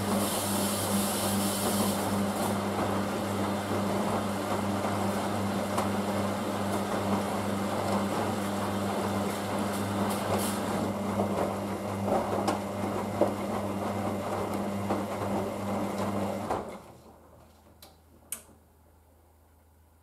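Hoover DYN9144D3X washing machine taking in water for its final rinse: a steady rush of water with a low hum. About 17 seconds in it cuts off as the water level is reached, and a couple of faint clicks follow.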